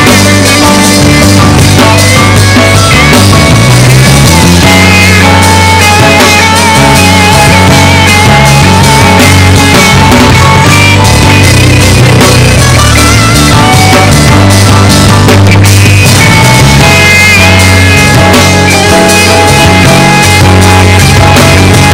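Loud band music with drum kit, bass and guitar, playing steadily throughout.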